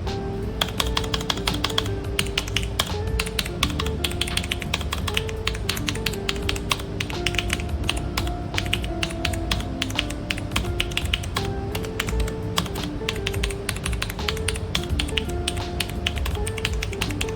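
Typing on a PC Power K82 mechanical keyboard: a fast, steady stream of keystrokes that starts about half a second in, over background music.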